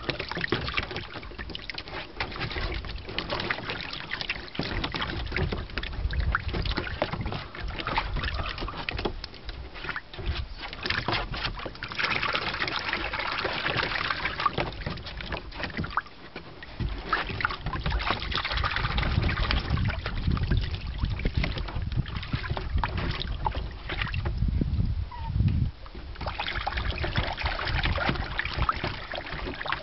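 Water splashing and sloshing in a shallow plastic kiddie pool as puppies paddle through it, coming and going, louder at some moments.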